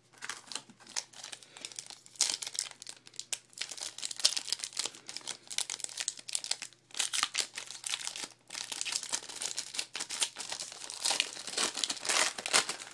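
Foil wrapper of a trading-card pack crinkling and tearing in irregular crackles as hands pull it open.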